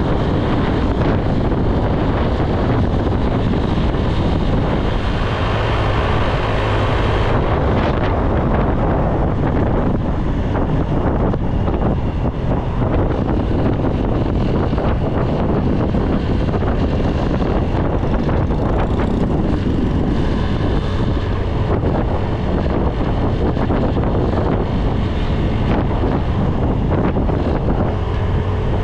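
Wind buffeting the microphone of a camera on a moving motorbike, with the bike's engine running steadily underneath.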